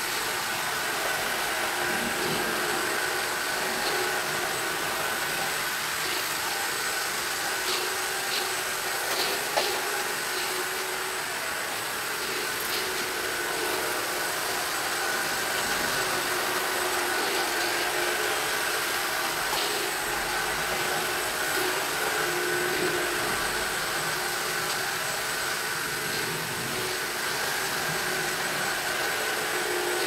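ILIFE V7 robot vacuum running on a hardwood floor: a steady whir of its suction fan and brushes, with a steady high whine. A few faint ticks come about a third of the way in.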